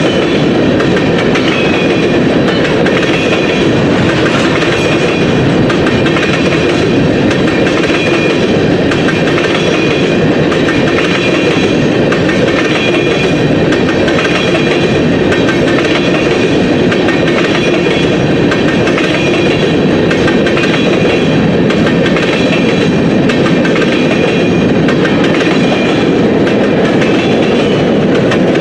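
Railroad cars rolling steadily past on the track, with a continuous loud clatter of wheels over the rails.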